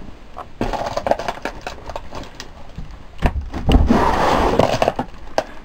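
Scraping, rubbing and knocking of wood and debris as someone moves through a cluttered room. A denser stretch of scraping with heavy thumps comes about three seconds in.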